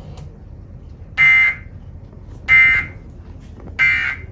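Emergency Alert System end-of-message signal: three short bursts of digital SAME data tones, about a second and a quarter apart, each a brief electronic buzz, marking the end of the alert broadcast.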